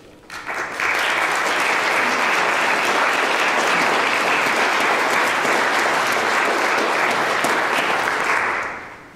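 Conference audience applauding at the end of a talk: it starts about half a second in, holds steady for about eight seconds, and fades out near the end.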